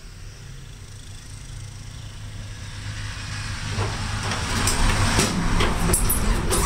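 A vehicle's engine running with a steady low hum. About four seconds in, a rushing noise swells up and grows much louder, with a few sharp clicks.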